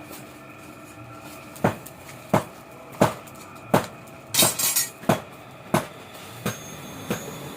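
Hammer blows on metal at a blacksmith's forge, struck at a steady pace of about one every 0.7 seconds, starting about a second and a half in. Each blow rings briefly.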